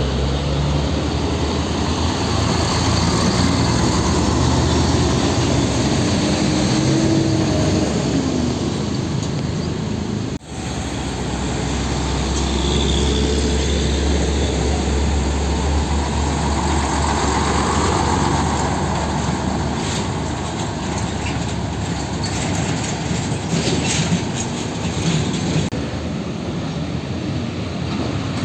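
Heavy diesel container trucks, a Mitsubishi Fuso and then a UD (Nissan Diesel), passing slowly one after another, their engines running with a steady low drone over road noise. The sound drops out briefly about ten seconds in, and light rattling clicks come later.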